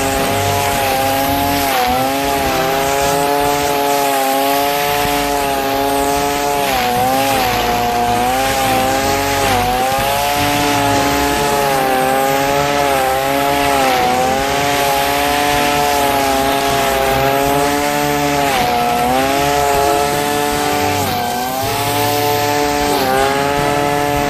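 Black Max two-stroke gas string trimmer running at high throttle. Its engine pitch dips briefly and recovers several times as the line cuts into tall grass.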